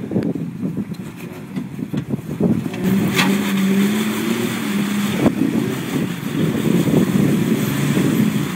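Jeep Wrangler TJ engine running under load as it crawls up a rock ledge, growing louder and rising a little in pitch about three seconds in. A few sharp knocks come over it, one about three seconds in and one about five seconds in.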